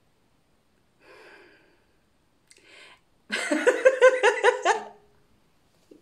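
A woman laughing out loud for about a second and a half: a quick run of pitched 'ha' pulses, after two short breaths.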